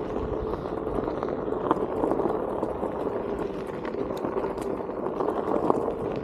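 Onewheel GT S-series hub motor whining steadily as it climbs, the pitch dipping slightly midway, over the tyre crunching and crackling on a dirt trail with small stones clicking.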